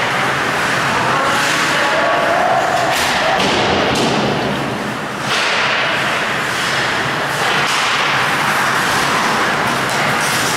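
Ice hockey play on a rink: a steady, loud noisy rush of skates on ice, with sharp slaps and thuds of sticks and puck.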